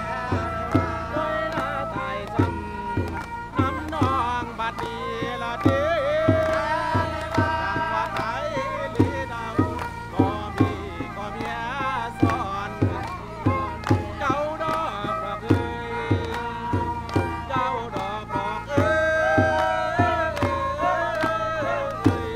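Music: a steady drum beat under a wavering, bending melody line.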